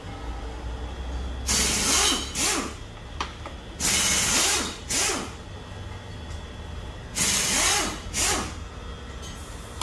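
Compressed-air blow gun fired in six short hissing bursts, in three pairs, over a steady low hum.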